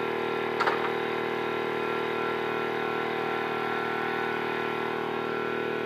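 Air compressor running steadily, with one sharp knock about half a second in.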